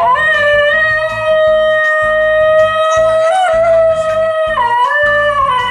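Basenji howling: one long, steady, smooth note that steps down in pitch near the end, over background music with a steady beat.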